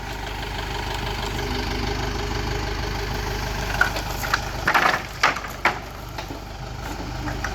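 Farm tractor engine idling steadily, with a few sharp knocks and clanks about four to six seconds in as the load is set down.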